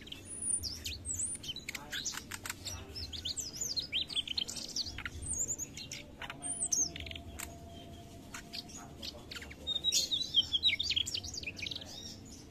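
Mugimaki flycatcher singing: bursts of quick, high twittering notes that glide rapidly up and down, broken by short pauses. The busiest burst comes about ten seconds in.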